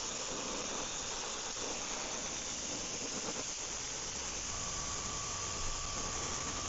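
Airbrush spraying silver paint onto a 3D-printed crankbait: a steady hiss of air and paint. A faint, steady whistle joins about two thirds of the way in.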